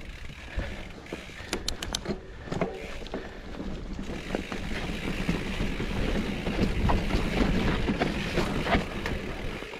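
Mountain bike rolling down a rough dirt trail: tyre rumble and the bike rattling, with frequent clicks and knocks over bumps and wind buffeting the microphone.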